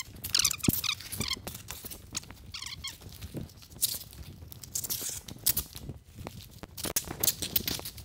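Old canvas roof covering being ripped up and dragged off a fire engine's wooden cab roof: irregular tearing, crinkling and scraping, with short high squeaks in the first second and again about two and a half seconds in.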